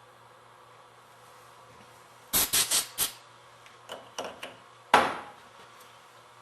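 A quick run of four sharp clacks, then a few lighter clicks and one more loud knock with a short ring: hard parts being handled and knocked together while a solenoid valve coil is turned and fitted on a Meyer E-60 snow plow pump.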